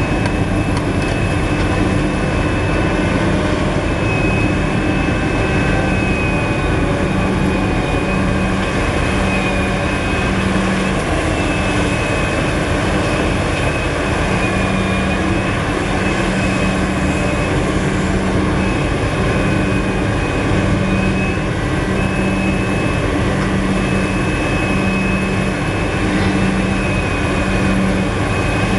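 Liebherr R974 hydraulic crawler excavator working: its large diesel engine drones steadily under load while it digs and swings to dump earth into a dump truck, with a low hum pulsing about once a second.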